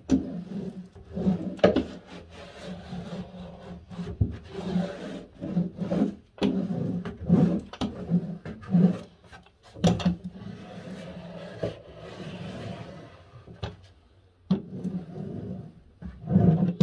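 Small hand roller rubbed back and forth in repeated strokes over a cork sheet on wet contact adhesive, with a sticky smacking as the cork is pressed down; the smacking shows the glue is still wet and tacky.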